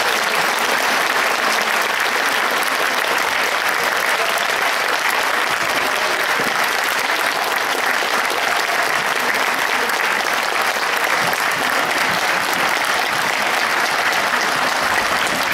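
A large audience applauding steadily and loudly in a hall.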